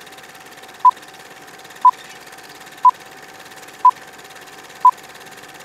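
Film-leader countdown sound effect: a short beep once a second, five times, over a steady crackling hiss of old film.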